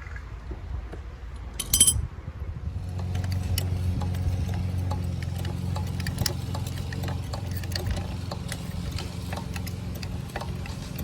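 A sharp metallic clink about two seconds in, from the steel jack-and-press rig holding a boat propeller as its pressure is released. It is followed by a steady low hum with many small clicks and ticks of metal parts.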